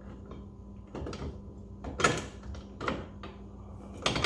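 Hard parts of a Sea-Doo Spark IBR bracket assembly knocking and clicking against each other as it is fitted onto the jet pump: about five separate sharp knocks, the loudest about two seconds in, over a faint steady hum.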